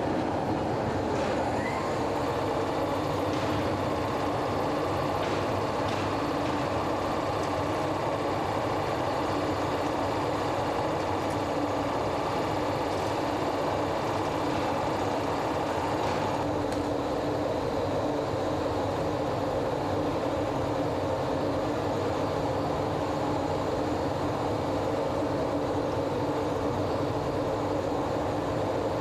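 Steady mechanical roar of foundry machinery during a bell casting, with a steady hum of several tones under it.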